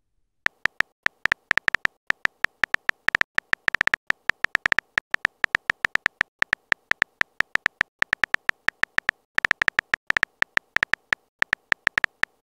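On-screen keyboard typing sound of a texting-story app: short, crisp keystroke clicks, one per letter as a message is typed. They come several a second in uneven runs with brief pauses between words.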